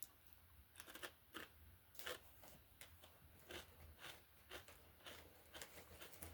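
Potato chips being bitten and chewed: a run of faint, irregular crisp crunches starting about a second in, roughly one or two a second.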